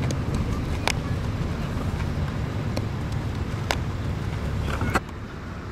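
Steady low outdoor rumble with three sharp knocks: one about a second in, one near four seconds and a loud one at five seconds. The rumble drops away abruptly at that last knock.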